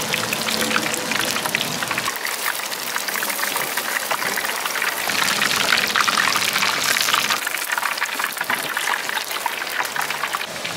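Large battered pieces deep-frying in a wok of hot oil: a dense, steady crackle and sizzle of many small pops, a little louder midway.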